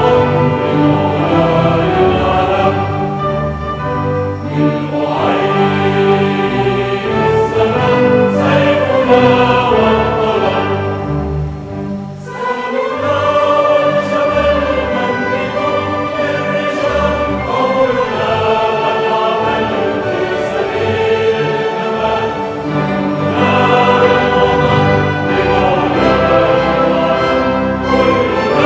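Symphony orchestra and choir performing together, the singers holding long sustained notes over the full orchestra, with a brief lull about twelve seconds in.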